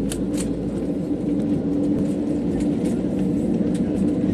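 Airliner's engines droning steadily, heard from inside the cabin as the plane moves along the runway, with a strong steady hum and a few light clicks.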